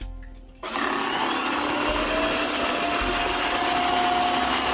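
Tineco cordless wet-dry floor washer's motor starting up about two-thirds of a second in, then running steadily with a faint whine.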